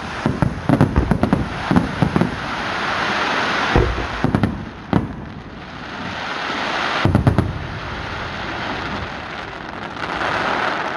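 Aerial fireworks display: rapid volleys of sharp bangs in three clusters, near the start, around the middle and about two-thirds through. Between the volleys, and again near the end, there is a dense hiss of crackling stars.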